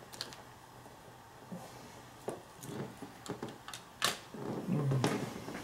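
Light clicks and taps from small objects being handled on a hard surface, with one sharper click about four seconds in.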